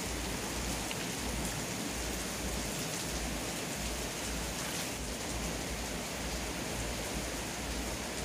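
Steady, even rushing hiss of water, with no distinct events.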